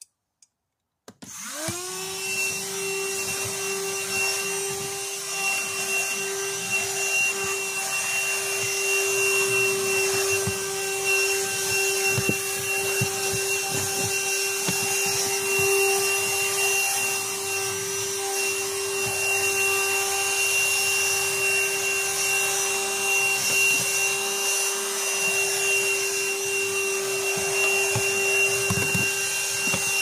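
Handheld 12-volt car vacuum cleaner switched on about a second in. Its motor spins up with a quickly rising whine, then runs steadily at a constant pitch.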